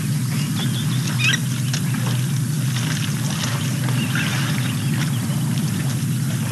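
Outdoor wildlife-camera ambience: a steady low hum with scattered short bird chirps and calls over it.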